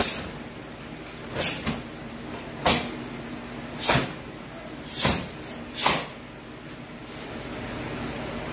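Karate gi snapping and swishing with each fast strike and block of a kata, about seven short, sharp whooshes in the first six seconds, then quieter.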